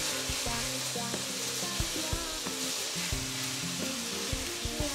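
Minced meat sizzling as it browns in a hot frying pan, with a wooden spoon stirring and knocking against the pan as the meat is spread out.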